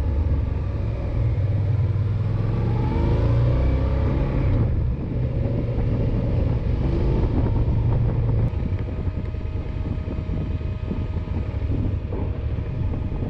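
Yamaha XT1200ZE Super Ténéré's parallel-twin engine running under way, heard with wind and road noise from a camera mounted on the bike. The engine sound drops about eight seconds in as the bike slows down and rolls along more quietly.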